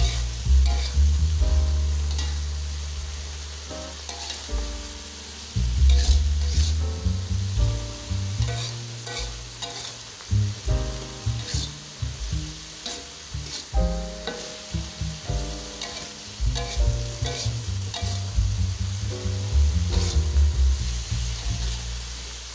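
Vegetables and fried tempe sizzling in a wok while a spatula stirs and scrapes through them, with repeated clicks of the spatula against the pan. Background music with a strong bass line plays underneath.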